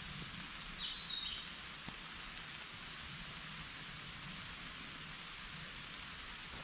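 Steady rain falling in a forest, an even hiss. A brief high bird call sounds about a second in.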